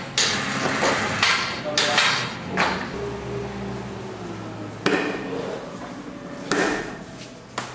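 Workshop tool noise during motorcycle assembly: a run of sharp knocks and clanks over the first few seconds, then a brief low hum, a single sharp click about five seconds in, and another short clatter near the end.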